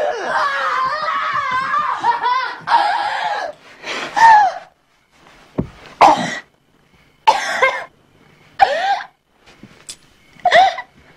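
A person's voice crying out as she comes to after a pretend adrenaline shot: one long wavering cry lasting about three and a half seconds, then five short cries with falling pitch, each a second or so apart.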